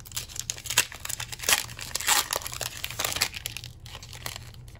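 Foil booster-pack wrapper of trading cards crinkling and tearing as it is ripped open, a dense irregular crackle that is thickest in the middle and thins out near the end.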